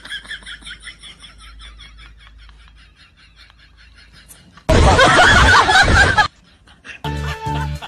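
Laughter trailing off over the first few seconds, then a loud, harsh burst of noise about a second and a half long. Bouncy novelty music with a steady beat starts near the end.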